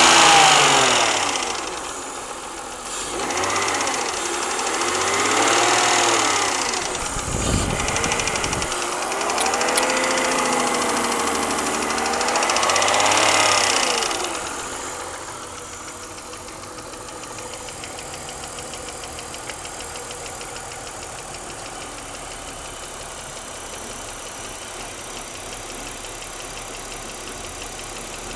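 BMW E46 323i straight-six engine blipped several times, each rev rising and falling, then settling to a steady idle with a fast, even ticking from the top end. This is the pinging the owner has after a head rebuild and valve job, which made it louder rather than curing it.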